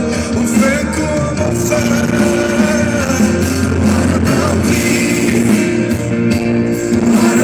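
Live pop-rock band music at a concert: guitar over a steady bass line, with singing at times.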